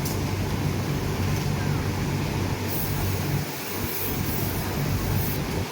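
Sewing machine running with a steady hum, easing off briefly about three and a half seconds in.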